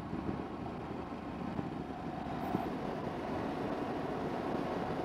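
Steady wind and road noise of a motorcycle on the move, with no clear engine note standing out.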